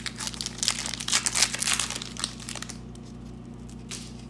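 Foil wrapper of a hockey card pack crinkling and tearing as it is pulled open by hand; the crinkling stops about three seconds in, with one last crackle shortly after.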